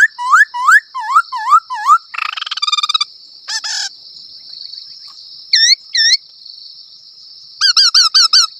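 Imitated spring bird calls. A run of rising chirps at about three a second turns into falling ones, followed by a short buzzy trill and a rattle two to four seconds in. After a pause come two single chirps, then fast repeated chirps near the end, all over a steady high hiss.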